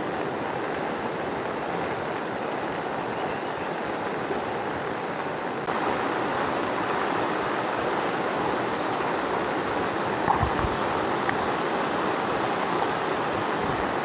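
A fast-flowing river rushing steadily over rapids, mixed with falling rain, as one even wash of noise that gets a little louder about six seconds in. A brief soft knock near ten seconds.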